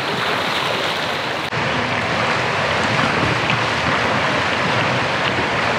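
A swimmer splashing through pool water, heard as a steady rush of water noise. The sound shifts abruptly about a second and a half in.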